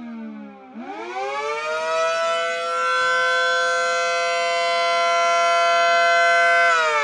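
3D-printed model of an ACA Allertor 125 rotating siren, sounding a chord of several tones. It winds down to its lowest pitch under a second in, spins back up quickly, holds a steady pitch, and starts to wind down again near the end.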